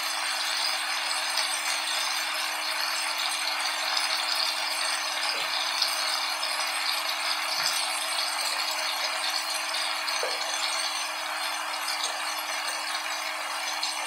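Shredded potatoes sizzling in hot oil in a pan: a steady, dense crackle, with a faint steady low hum underneath.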